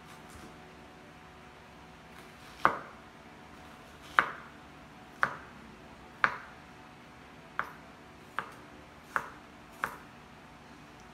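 Kitchen knife chopping through a white onion onto a wooden cutting board: eight sharp knocks about a second apart, each ringing briefly, coming a little quicker toward the end.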